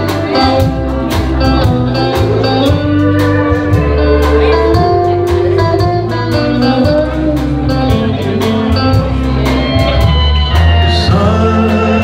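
Live country-rock band playing a slow ballad: electric guitar and sustained, sometimes sliding notes over a steady drum beat.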